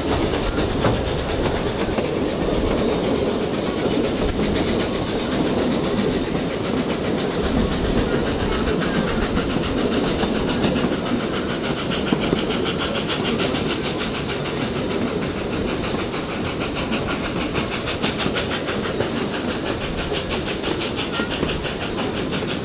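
Puffing Billy narrow-gauge steam train running, heard from an open-sided carriage: a steady rolling noise of wheels on the rails with a regular clickety-clack.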